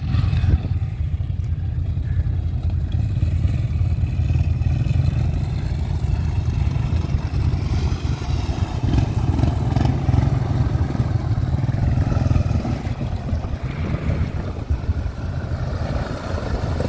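ATV engine running hard under load as the four-wheeler churns through a deep mud hole, its tyres throwing and splashing muddy water.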